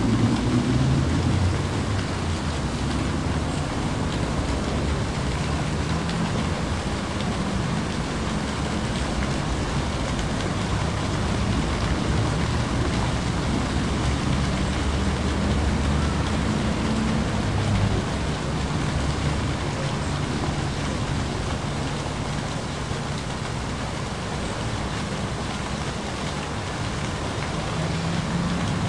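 Steady outdoor background noise: an even hiss over a low rumble that shifts in pitch now and then, with no distinct sound standing out.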